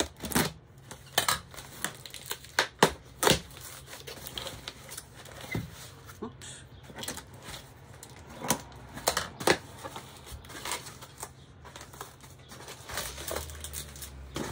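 A cardboard shipping box being opened by hand: irregular sharp snaps, scrapes and crinkles as its flaps and packing are pulled open, loudest a few seconds in.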